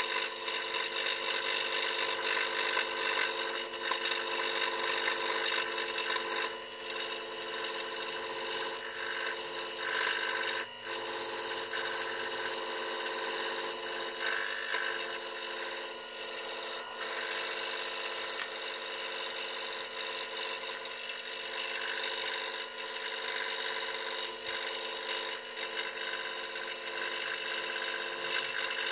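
Scroll saw running steadily while its fine blade cuts through a wooden board: an even mechanical hum with the rasp of the blade in the wood, dipping briefly a few times.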